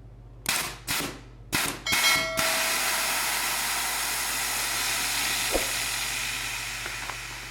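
Compressed air hissing out of a road bike tyre's Presta valve as the tyre is deflated: four short bursts, then one steady release of about five seconds that slowly weakens near the end.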